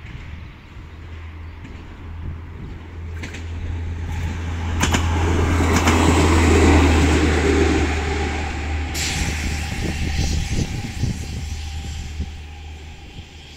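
ÖBB diesel railcar passing over a level crossing: the low engine drone swells to its loudest about six to seven seconds in, then eases off as it runs away. A few sharp clicks of wheels over the rails come as it reaches the crossing, and the rolling noise goes on after it.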